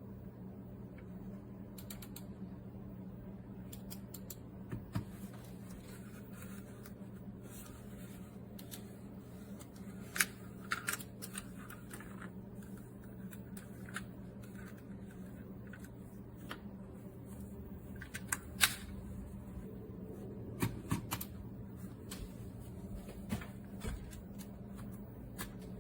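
Scattered small sharp clicks and taps, in clusters a few seconds apart, over a steady low hum.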